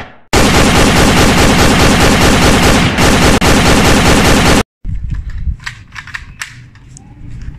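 Dubbed-in automatic gunfire sound effect: one long, very loud rapid-fire burst of about four seconds that cuts off abruptly, followed by a few scattered fainter cracks.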